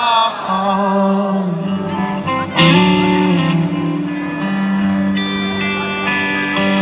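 Live rock band in an arena: a sung word trails off at the start, then electric guitar chords ring out over held low notes through the PA, with a loud strummed chord about two and a half seconds in.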